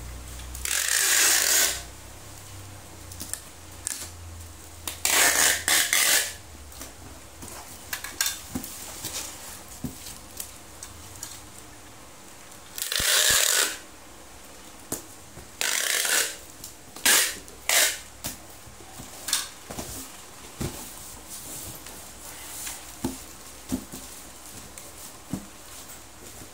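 Packing tape ripping off a handheld tape gun dispenser as strips are pulled across a cardboard box, about five long rasping pulls. Between them come shorter clicks and knocks from the dispenser and the box being handled.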